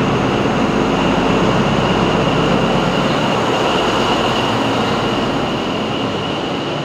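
V/Line diesel-electric locomotive and its passenger train at close range, the engine running with a dense rail noise. A steady high-pitched tone runs over it, and the whole sound eases off slightly near the end.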